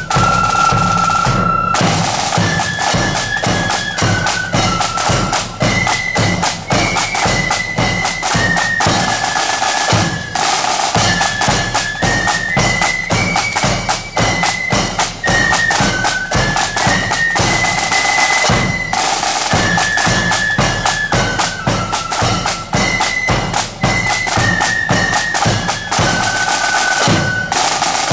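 Marching band playing a tune: a high, stepwise wind-instrument melody over rapid, continuous drumming.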